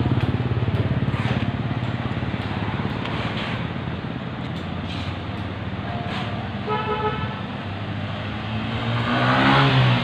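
Street traffic with engines running as cars drive past, a short car horn toot about seven seconds in, and a vehicle passing close near the end, the loudest sound, its engine note falling as it goes by.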